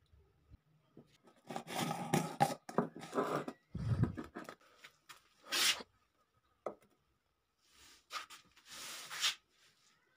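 Containers being handled and put back on a shelf: scraping, rustling and clicks of plastic jars and a steel pot, with a low knock about four seconds in.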